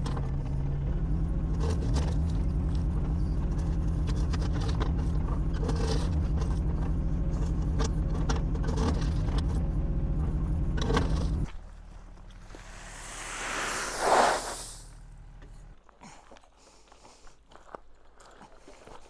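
Takeuchi TB216 mini excavator's three-cylinder diesel running under hydraulic load while the bucket digs and drops soil, with knocks and scrapes over the engine. About eleven seconds in the sound drops abruptly to a quieter, lower running, with a brief rising and falling hiss, then falls away to faint crunches and clicks.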